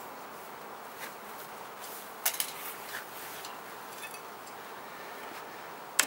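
Honeybee colony humming steadily from an open hive, with a few short sharp clicks, the loudest a little over two seconds in.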